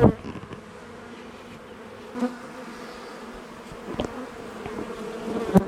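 A honeybee colony buzzing steadily as it is exposed during a cutout. A sharp knock comes right at the start, with lighter knocks about four seconds in and near the end.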